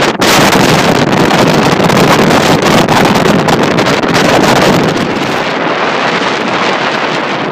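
Strong wind buffeting the phone's microphone, a loud, dense rush. It picks up suddenly just after the start and eases a little about five seconds in.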